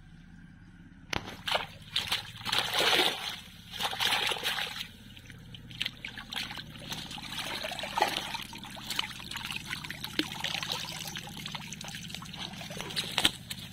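Shallow pond water splashing and sloshing as a cast net full of large fish is gathered and hauled out by hand, loudest in the first few seconds. This is followed by water trickling and dripping from the lifted net, with scattered small crackles and ticks.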